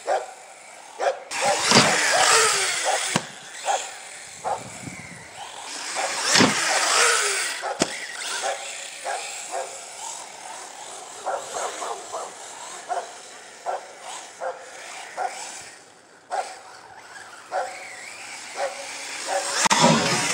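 Arrma Typhon 6S RC truggy driving hard over dirt, geared down on a 12-tooth pinion, its brushless motor and tyres swelling loud as it accelerates and passes, with short knocks and scrapes from bumps in between. Near the end it launches off a ramp.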